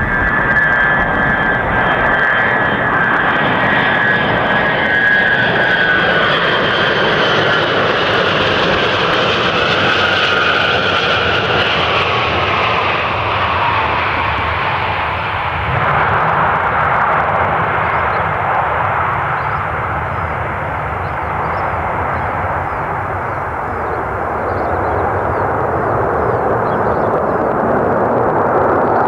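Ilyushin IL-62 airliner's four rear-mounted jet engines on landing: a loud jet whine whose high tones slowly fall in pitch as the plane passes low and touches down, then a fresh surge of engine noise about halfway through as it rolls out on the runway.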